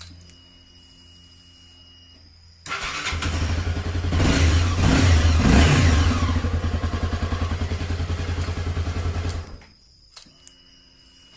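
Honda CB300 single-cylinder motorcycle engine starts about three seconds in and runs with a rapid even pulse. It revs up briefly and then cuts off abruptly near the end.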